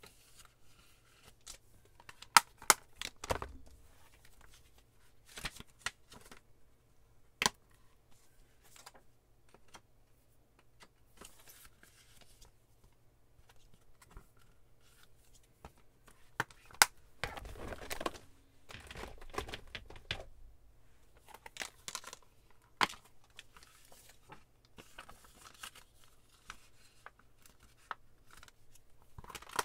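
Clear plastic stamp-set cases being handled and lifted off a wooden desk: scattered sharp plastic clicks and knocks, with a stretch of rustling about two-thirds of the way through.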